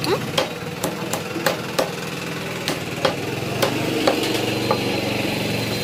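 A heavy cleaver chopping rooster meat and bone on a wooden log block: about ten sharp chops at an uneven pace, roughly two a second. A steady engine hum runs underneath.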